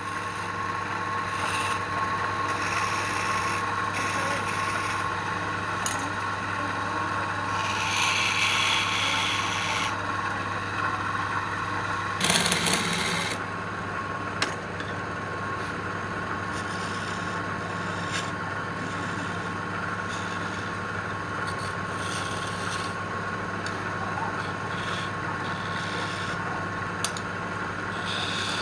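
Woodworking power tool, likely a wood lathe, running steadily with a constant hum and whine, with hissing stretches where a tool works the wood, the longest about eight seconds in and a shorter one around twelve seconds.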